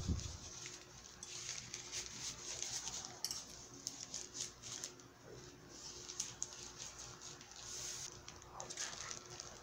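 Faint, scattered clinks and ticks of a metal fork and spoon against ceramic plates as spaghetti is twirled, over a faint steady hum.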